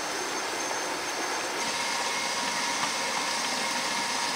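A Primal RC 1/5-scale electric trail truck spinning its tires in a shallow creek, churning up a steady rush of water spray, with a faint high whine from its electric drive. The truck is stuck and straining against its winch line.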